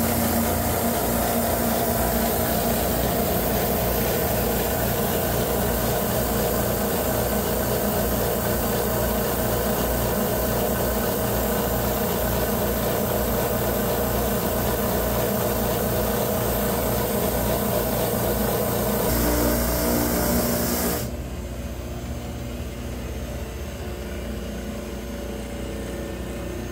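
Jet JWDS-2244OSC oscillating drum sander taking a little over 1/32 inch off the face of a 14-inch-wide slab: a loud steady hiss of abrasive on wood over the machine's running noise. About 21 seconds in it drops to a quieter steady run as the slab clears the drum and the sander runs unloaded.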